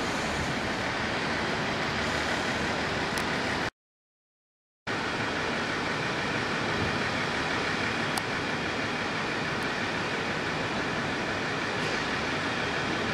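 Steady rumble of a KiHa 40-series diesel railcar running in toward the platform, cut off for about a second by an edit.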